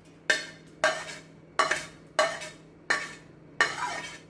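Six sharp clinks, each with a short ring, a little under a second apart: fried onions being knocked out of a glass bowl into a steel mixer-grinder jar, the utensils striking its rim.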